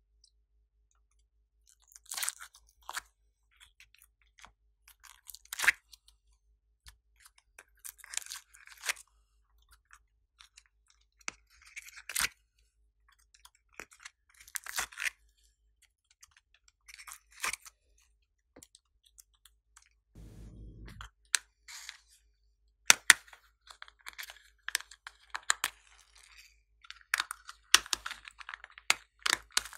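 Handling sounds of plastic slime containers and clay pieces: scattered sharp clicks and short crinkly crackles every second or two, which grow denser and louder over the last third as foam beads are tipped out of a plastic container.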